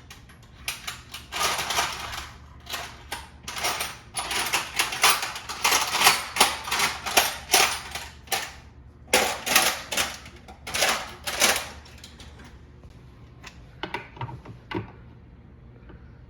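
Quick clicks and clatter of hard parts being handled as a refrigerator's ice-dispenser assembly is taken apart by hand. The clatter is dense for about twelve seconds, then thins to a few scattered clicks.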